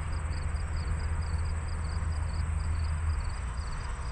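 Wind rumbling on the microphone over a steady hiss, the rumble easing off about three seconds in, with a faint high-pitched chirp repeating about three times a second.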